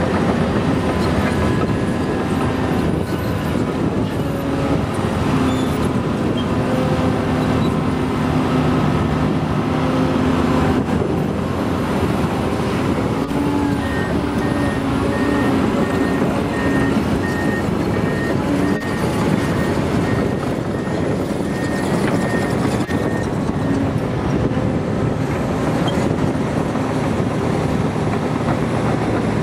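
Komatsu PC800LC hydraulic excavator's diesel engine and hydraulics working steadily under load as it digs and loads soil into an articulated dump truck. From about halfway a reversing alarm beeps steadily for several seconds, then stops.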